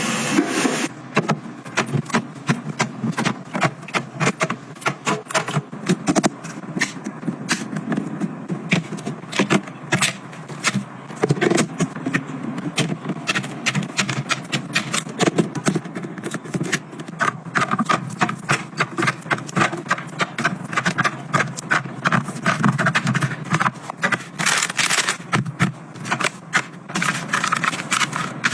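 Household items being handled: a quick, irregular run of sharp clicks, taps and rattles as things are picked up and set down, with some scraping.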